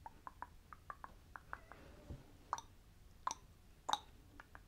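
Faint, soft clicking from an ASMR 'brain scratch', a few clicks a second, with three louder, sharper clicks in the second half.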